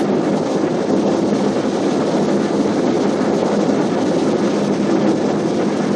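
Steady cabin noise of an airliner in flight: an even rush of engine and airflow with a low steady hum underneath.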